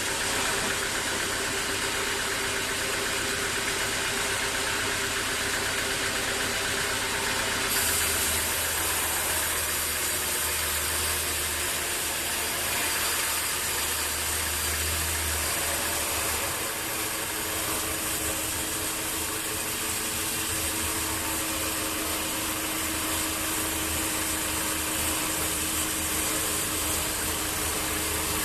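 Sawmill machinery running steadily. About eight seconds in the sound changes: a brighter hiss and a deeper hum come in, and the hum drops away again about halfway through.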